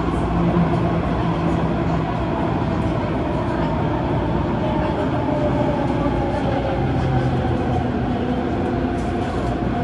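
Adtranz-CAF electric multiple unit of the MTR Tung Chung Line running along the line, heard from inside the car: a steady rumble of wheels and track with a motor whine made of several held tones.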